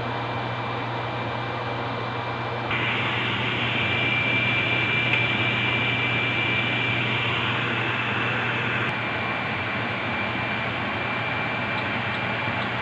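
Steady fan-like mechanical hum with a thin high whine. A louder hiss joins about three seconds in and eases off a little near nine seconds.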